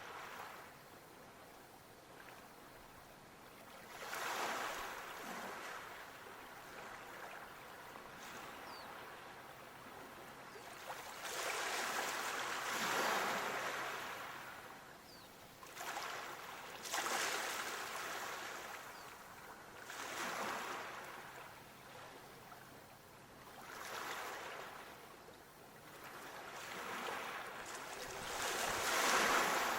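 Waves washing in, the rushing water swelling and fading every few seconds; the biggest surges come a third of the way in and near the end.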